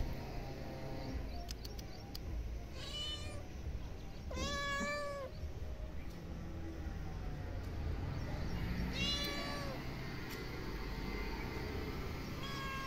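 Tabby cat meowing four times, each call rising then falling in pitch; the second, about four and a half seconds in, is the loudest, and the last begins near the end.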